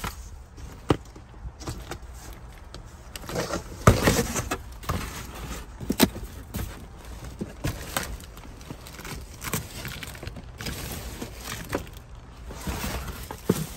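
Rubbish being handled in a dumpster: black plastic garbage bags, plastic wrap and cardboard boxes rustling and crinkling, with irregular knocks as items are moved. The loudest knock comes about four seconds in and another about six seconds in.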